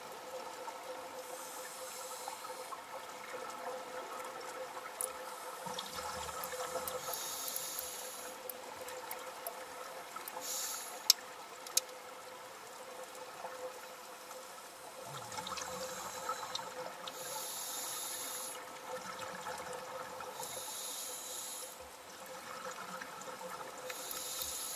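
Underwater sound of a scuba diver's regulator breathing: a hissing burst of exhaled bubbles every few seconds, over a steady hum. Two sharp clicks stand out about eleven seconds in.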